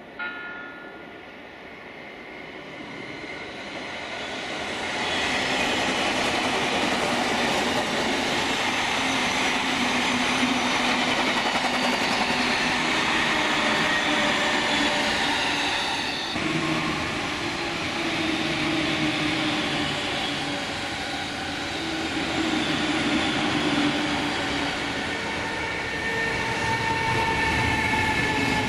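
Electric train on the Tokaido Line passing close by: it grows louder over the first few seconds, then runs on as a long, steady rumble of wheels on rail with whining tones.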